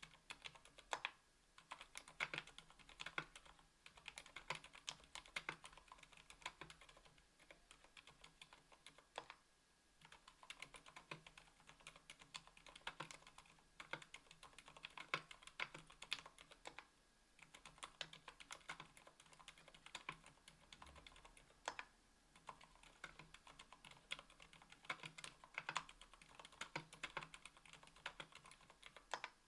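Typing on a 60% aluminium-plate mechanical keyboard with stock Gateron Silent Black Ink linear switches (60 g) and GMK keycaps: a quiet, dampened patter of keystrokes. There are brief pauses about nine and seventeen seconds in.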